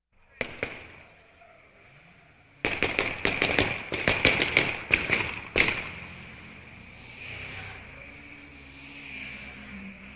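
Two sharp cracks, then a rapid string of sharp bangs and pops lasting about three seconds, over a thin steady high-pitched whine. After the bangs stop, a quieter low rumble continues.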